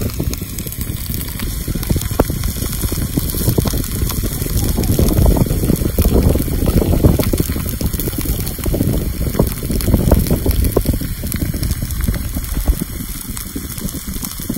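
Beef steaks cooking on a flat stone slab heated by a wood fire, the meat juices on the hot rock bubbling with scattered crackles and pops.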